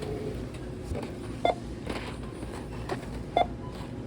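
Self-checkout barcode scanner beeping as items are scanned: two short beeps about two seconds apart, over steady store background noise.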